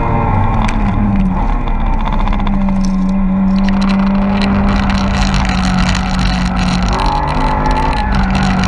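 Four-cylinder hot hatch engine under hard track driving, heard from inside the cabin. Its note holds steady for several seconds, then changes and climbs again near the end.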